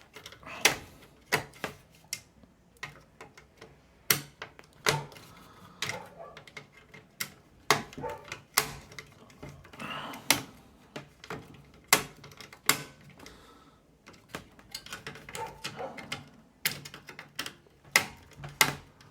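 Irregular sharp clicks and taps of metal screws and a screwdriver against a plastic case-fan frame and the metal PC case as fan screws are fitted, a few a second at times with short pauses between.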